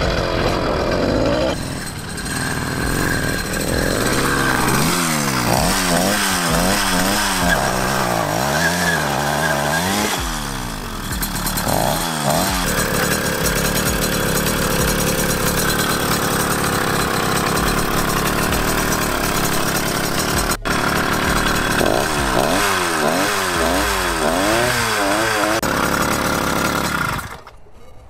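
100cc two-stroke motorised-bicycle engine running under way, its pitch wavering quickly up and down in stretches as the throttle is worked. It cuts out near the end.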